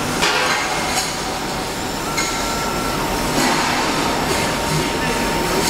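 Steel pipe cutting machine cutting through steel pipe: a steady metallic grinding noise with thin whining tones over it, as the blade is fed further to finish a cut that had not yet gone all the way through.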